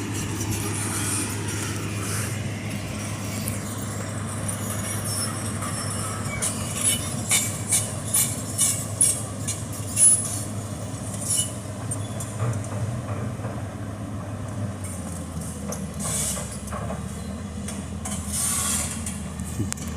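Komatsu excavator's diesel engine, with a failed turbocharger, running steadily. About a third of the way in comes a run of sharp knocks, roughly two a second, for several seconds.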